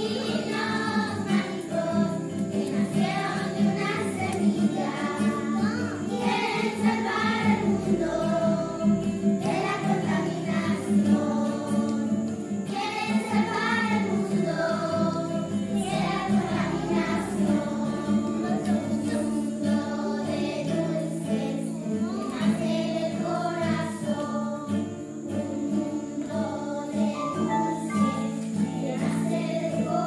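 A group of children singing a song together in unison, accompanied by an acoustic guitar.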